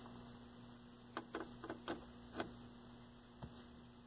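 A small glass vacuum tube, a 10KR8, is pushed into a tube tester's socket, giving about six small sharp clicks and taps over a couple of seconds. A faint steady mains hum from the tester runs underneath.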